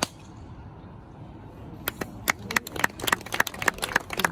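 A sharp crack of a golf club striking the ball off the tee, followed about two seconds later by spectators clapping.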